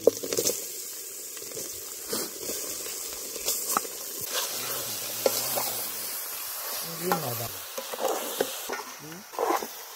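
Spices and raw mutton pieces sizzling in hot oil in an aluminium cooking pot as they are tipped in and stirred, a steady hiss with occasional knocks of meat and hand against the pot.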